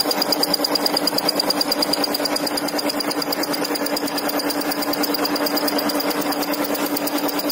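Milling machine's face-milling cutter taking a heavy cut in steel: a steady cutting noise with a rapid regular pulse, a low hum and a high whine.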